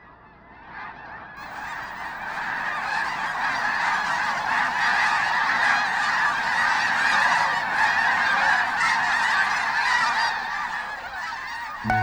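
A large flock of geese calling together, a dense, continuous chorus of overlapping honks that fades in over the first few seconds and then holds steady.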